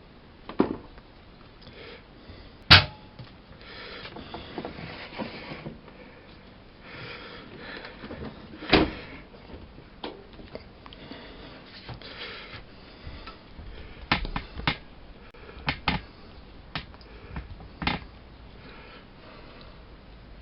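Miele Softtronic W 204 front-loading washing machine mid-wash: the drum turns in spells of a second or two, with the wet laundry swishing, broken by sharp knocks every few seconds.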